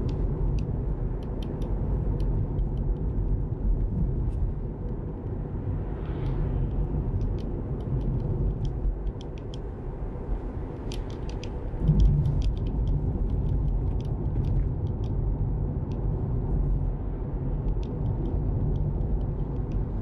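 Road and tyre noise inside the cabin of a Tesla Model 3 cruising at about 30 mph: a steady low rumble with no engine note, with a louder bump about twelve seconds in.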